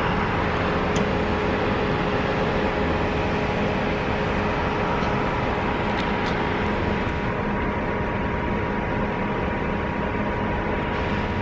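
Steady mechanical hum with a constant two-note whine over it, unchanging throughout, with a few faint clicks.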